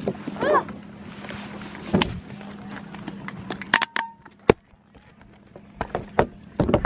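Scattered clicks and knocks from things being handled and the camera being moved about, the sharpest about four and a half seconds in, with a brief voice sound about half a second in and a faint steady hum underneath.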